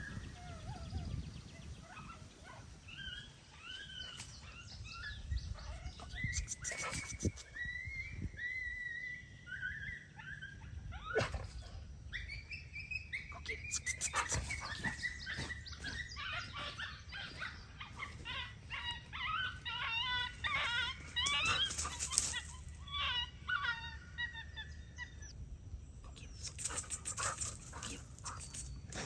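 Electronic predator call playing canine distress sounds to lure a coyote: high, wavering whimpering cries that grow into rapid, busy calling about halfway through, with a few sharp clicks among them.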